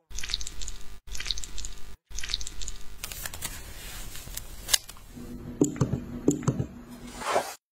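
Close-miked ASMR care sounds: three short bursts of wet, sticky crackling as a brush works gel over a lip mask, then a soft hiss with a single sharp click, then several light clicks of wooden chopsticks against a glass bowl over a low hum.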